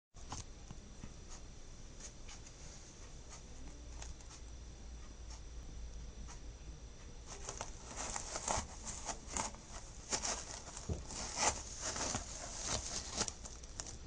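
Rustling and light clicking from something being handled close by, sparse at first and growing busy about halfway through, over a steady faint electrical hum and high whine.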